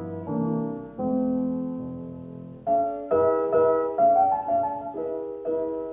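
Background piano music: slow chords that fade after each strike, then faster, brighter notes from about three seconds in.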